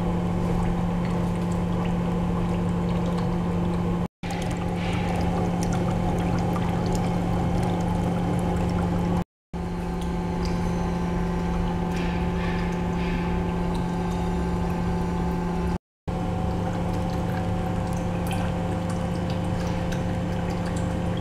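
Water-cooling test rig's circulating pump running with a steady hum, with water flowing through the hoses and pouring into the reservoir tank. The sound breaks off briefly three times, at about 4, 9 and 16 seconds in.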